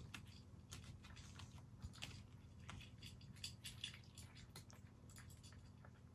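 A tabby-and-white cat eating from a bowl: faint, irregular chewing clicks over a steady low hum.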